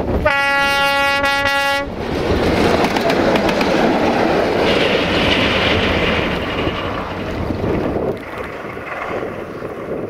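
Sulzer-engined 060-DA (LDE2100) diesel-electric locomotive sounding its horn in one steady blast of about a second and a half, then the loud running noise of the approaching locomotive.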